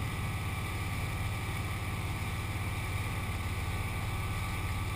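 Speedboat engine running steadily at towing speed, a low, even hum, with the churn of the wake under it.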